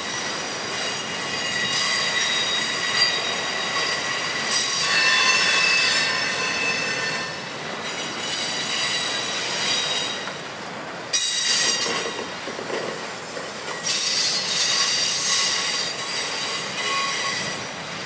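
Autorack cars of a freight train rolling past, wheels squealing against the rails. The squeal comes and goes in bouts over a steady rumble of the cars.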